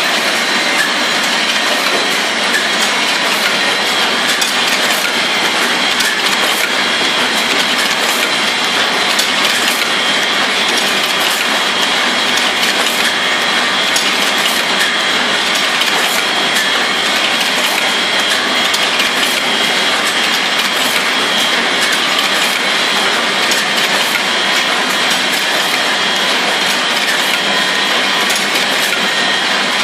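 Automatic wire coat-hanger forming machine running. Its levers and bending head cut and bend wire into hangers with a loud, steady, rapid metallic clatter.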